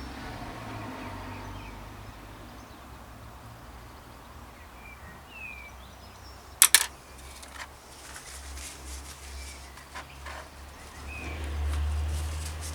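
Outdoor background with a bird chirping now and then. Two sharp clicks come in quick succession about six and a half seconds in, followed by a few fainter clicks. A low rumble swells near the end.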